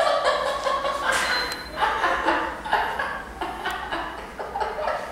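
People laughing and chuckling in a run of short bursts.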